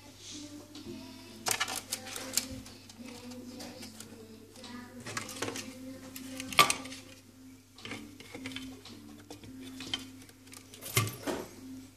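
Irregular clicks and clatter of plastic and metal parts being handled and pulled from an opened bean-to-cup espresso machine during disassembly, with a sharp knock about six and a half seconds in.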